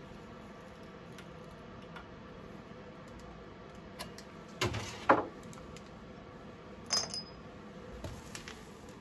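Steel pressing tools clanking against the spindle and press as they are lifted off the freshly pressed-in mill spindle. A pair of sharp knocks comes about five seconds in, then a ringing metal clink about two seconds later and a few light taps.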